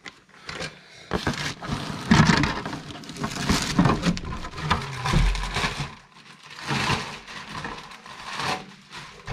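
Packaging being handled during unboxing: plastic wrap crinkling and rustling with irregular clicks and knocks. A dull thump comes about five seconds in.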